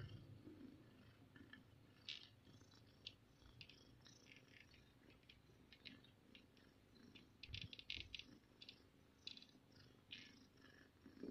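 A mother cat, just after giving birth, purring faintly and steadily while being stroked, with scattered soft clicks and rustles throughout.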